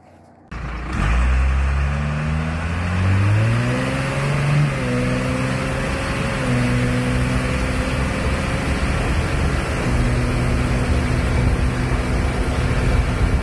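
12-valve Cummins inline-six diesel pickup at full throttle from a standstill. The engine note climbs in pitch for the first few seconds, drops at two upshifts, then holds a steady pull, with wind and road noise through the open window.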